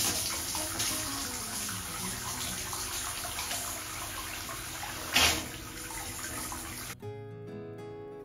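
Bathtub filling, water pouring in through the tub's circulation port with a steady rushing splash and one short louder burst about five seconds in. About seven seconds in it cuts off abruptly, replaced by acoustic guitar background music.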